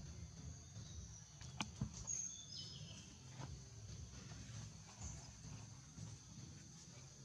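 Quiet forest ambience with a steady high insect drone. A couple of sharp clicks come about one and a half seconds in, and a short run of high falling chirps follows just after two seconds.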